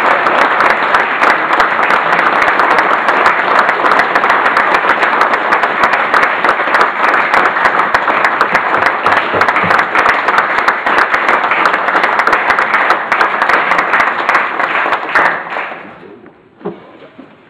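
Loud applause from an audience, many hands clapping at once, dying away near the end.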